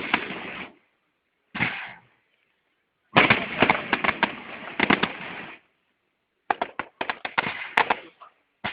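Fireworks salute going off: sharp bangs and crackling in several bursts, broken by short silences.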